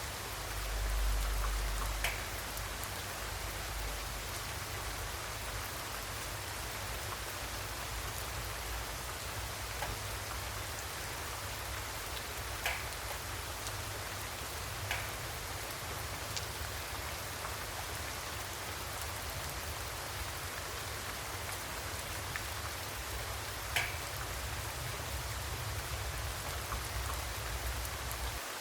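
Steady rain falling, with now and then a single louder drop. A low rumble swells briefly about a second in.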